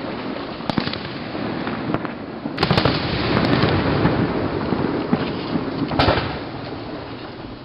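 Fireworks display: a sharp bang about a second in, then another near three seconds in followed by a couple of seconds of dense rumbling crackle, and a loud bang about six seconds in.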